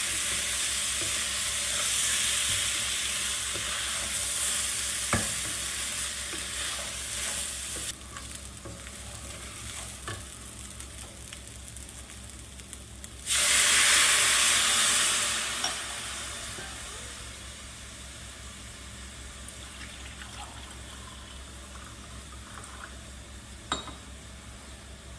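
Rice and morel pieces frying in a pot, stirred with a wooden spatula, with a steady sizzle. About halfway through comes a sudden loud sizzle as liquid hits the hot rice, dying down within a couple of seconds to a quieter steady sizzle.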